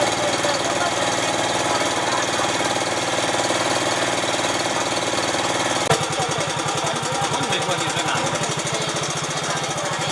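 An engine running with a rapid, even knocking beat. About six seconds in there is a short click and the beat changes.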